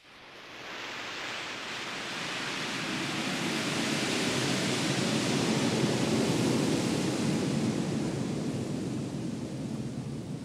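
A surging wash of noise like surf or rushing wind, rising out of near silence over a few seconds, peaking midway, then slowly easing off. It is the noise texture of an ambient electronic piece, with no clear notes.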